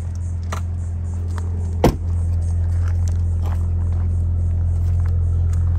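A 2024 Jeep Grand Wagoneer L's engine idling with a steady low hum. A car door shuts with a single sharp thud about two seconds in, and a few light footsteps crunch on gravel.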